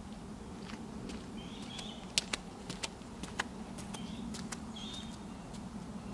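Birds chirping outdoors in short calls every second or so, over a steady low background hum. A few sharp light clicks come in the middle.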